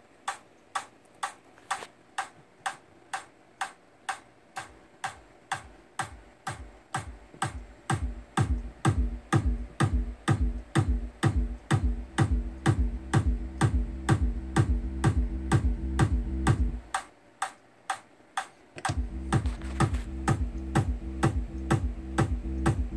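Electronic drum-machine beat sequenced from a Maschine Jam controller in Ableton Live: a kick drum whose pitch drops on each hit, about one and a half a second, with ticking hi-hats between. A sustained bass line comes in about eight seconds in, cuts out with the kick for about two seconds past the middle, then returns.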